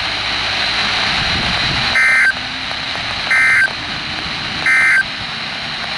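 NOAA Weather Radio EAS end-of-message (EOM) signal: three short bursts of digital data tones about 1.3 s apart, marking the close of a Required Weekly Test, over a steady hiss.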